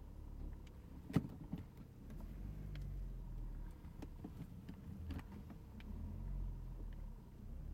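Low rumble of a car's engine and tyres heard from inside the cabin as the car drives slowly. There is one sharp click about a second in and a few lighter ticks after it.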